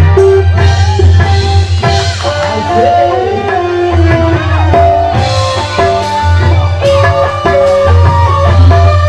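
Loud music with a steady bass, melodic instrument lines, guitar and drums.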